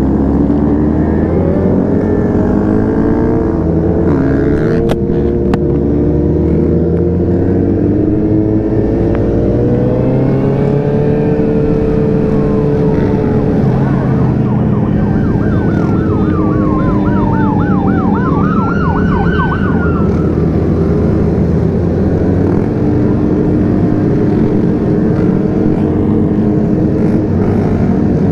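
Sportbike engines running steadily as a group of motorcycles cruises, heard from the rider's own bike. About ten seconds in an emergency vehicle's siren sweeps down, switches to a fast yelp, then wails up and down once and stops about twenty seconds in.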